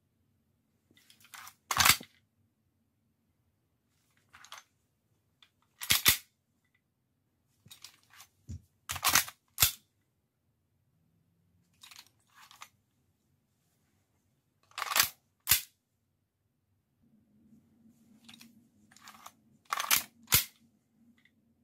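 Airsoft 1911 pistol being reloaded over and over: sharp clacks of magazines being ejected and seated and the slide snapping forward, often in pairs about half a second apart, with softer rattling between.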